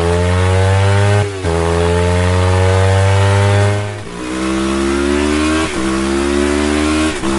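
Motorcycle engine accelerating hard through the gears. Its pitch climbs steadily and dips briefly at each of about four gear changes.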